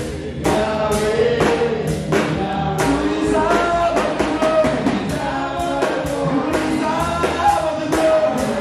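A man singing a worship song full-voiced into a microphone, backed by a band with electric guitar and a steady drum beat.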